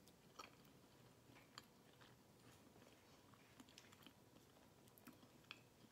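Faint chewing of a mouthful of soggy fried apple pie, with scattered soft mouth clicks.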